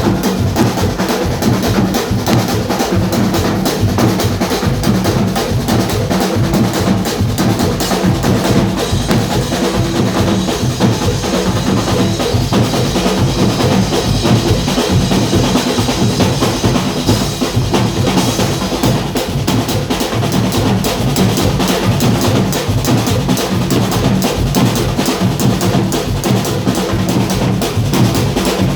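Carnival street band of drums and percussion playing a fast, steady rhythm, bass drum and snare-like strokes together.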